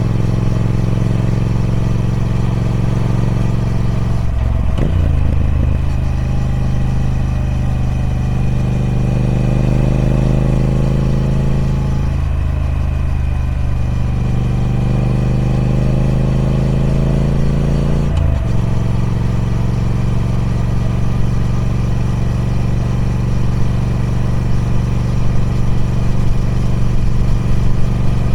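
Triumph Speed Twin 1200's parallel-twin engine running through its stock exhaust. The note changes abruptly about four seconds in and again near eighteen seconds in, with slow rises in pitch in between.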